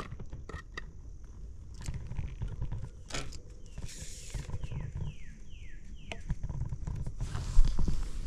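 Slow footsteps crunching and rustling through dry leaf litter over a low rumble of wind and handling, with scattered clicks. Midway comes a run of four short falling calls in quick succession, and a louder knock near the end.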